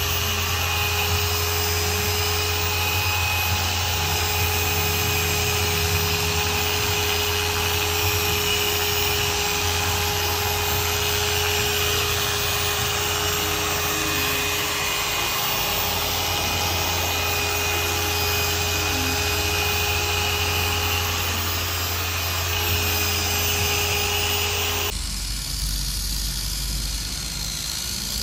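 Electric machine polisher running steadily with its pad on a motorcycle helmet's shell, a constant motor hum under a dense whirring hiss. About 25 seconds in the sound changes to a deeper rumble.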